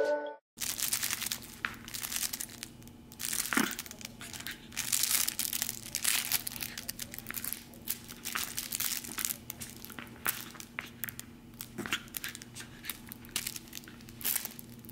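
Irregular crinkling and rustling, like plastic or paper being crumpled, with many small clicks and a short squeak about three and a half seconds in.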